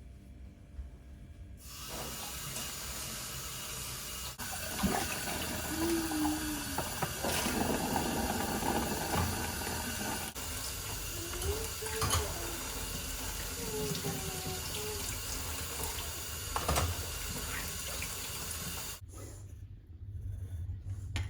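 Water running steadily, starting abruptly about two seconds in and stopping abruptly near the end, with a few sharp knocks along the way.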